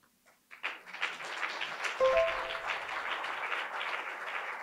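Audience applauding, starting about half a second in and then holding steady. About two seconds in a low thump and a few brief held tones sound over it.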